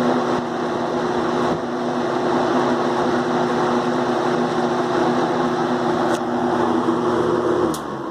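Air King PL20P box fan with a GE motor and plastic blades running on high speed: a strong rush of air over a steady motor hum. The hum drops away near the end.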